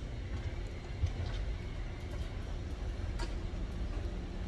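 Low, steady rumble and hum of a ship's interior, with phone-handling noise as the phone is carried out of the cabin. Two light clicks, one about a second in and one near three seconds in.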